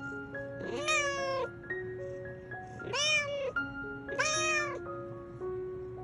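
A tabby house cat meowing three times, each call rising then falling in pitch and lasting under a second, over soft background music with a slow tune of held notes.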